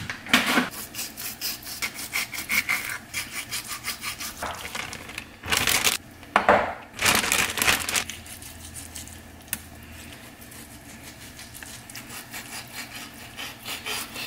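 Kitchen knife sawing through raw yellowfin tuna and scraping on a wooden cutting board as the skin is cut away, in quick repeated strokes. Two louder bursts come about halfway, and the strokes grow fainter and sparser after that.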